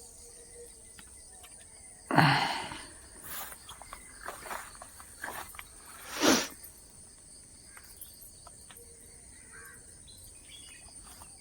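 Steady high-pitched insect drone, with a few louder brief noises about two and six seconds in.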